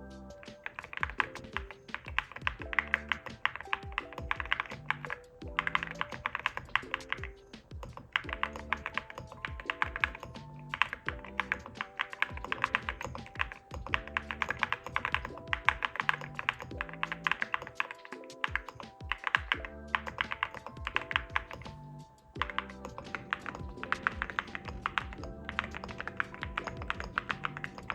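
Fast typing on a Cerakey Nada 65 keyboard with ceramic keycaps and Celeste blue linear switches, giving deep, thocky keystrokes in a rapid stream with a couple of brief pauses. Background music plays throughout.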